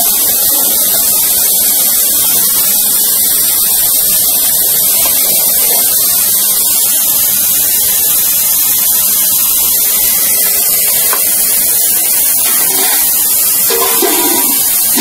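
A steady, loud hiss, with faint scrapes of a metal spatula against a steel bowl as cooked okra is spooned in.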